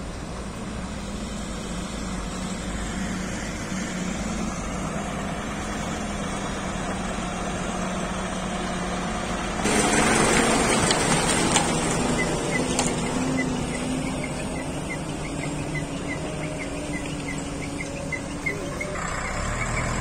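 Bull HD75 backhoe loader's diesel engine running steadily as the machine drives, becoming suddenly louder and noisier about halfway through. A run of short, evenly spaced high chirps sounds over the second half.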